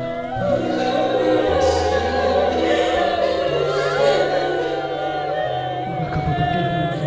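Music with a choir singing over long held low notes that step from one pitch to the next.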